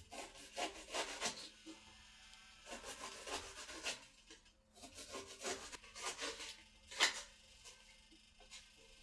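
Kitchen knife slicing and chopping a red onion on a cutting board: a run of crisp, uneven cutting strokes, with one sharper knock of the blade on the board about seven seconds in.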